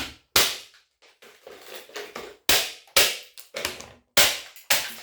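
Hard blows with a tool striking a small electric motor to break it apart for scrap copper: six sharp impacts in three pairs, each pair about half a second apart, with light clatter of metal parts between.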